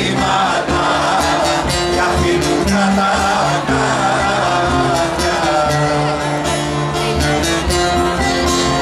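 Live band playing a Greek folk-rock song: a plucked long-necked lute and guitars over a steady drumbeat.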